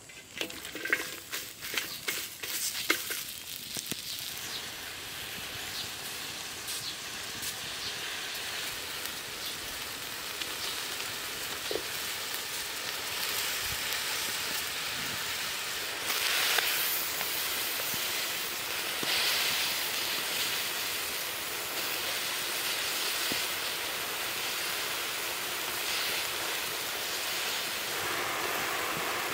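Lemongrass, galangal and whole fish sizzling in a hot wok over a wood fire. A few clicks as the stalks are dropped onto the metal in the first seconds, then a steady hissing sizzle that slowly grows louder and steps up about halfway through.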